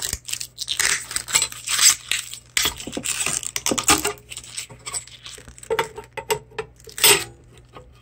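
Clear plastic protective film crinkling and rustling as it is handled on a thin metal tray, with the metal plate clicking and clattering against the bamboo box as it is set in place. There is a sharper clack about seven seconds in.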